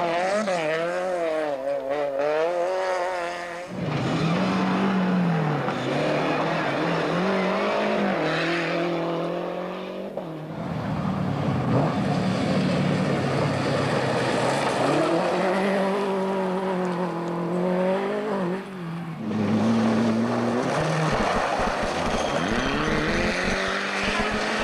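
Several rally cars, among them a Volkswagen Golf Mk1 and a Mitsubishi Lancer, driven hard one after another on a gravel stage: engines revving high and dropping again through the bends, with tyres sliding on loose gravel.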